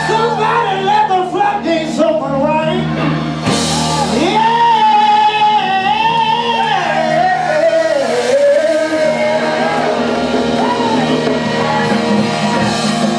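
Live blues-rock band playing: guitars, bass and drums, with a high lead line that bends in pitch and holds long notes over them.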